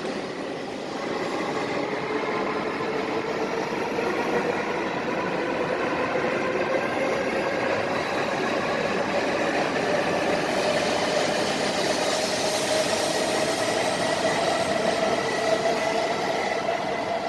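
Coupled Shinkansen bullet train (E5 and E6 series sets) pulling out along the platform: a steady running noise of the cars passing, with a motor whine that rises slowly in pitch as it gathers speed.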